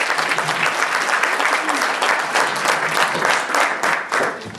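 Audience applauding, many hands clapping at once. The applause dies away near the end.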